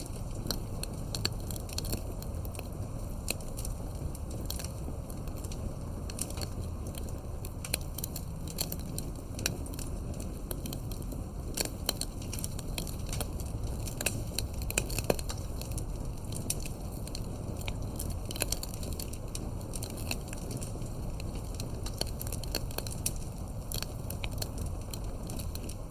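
Wood fire burning: a steady low rumble of flames with irregular crackles and sharp pops from the burning wood.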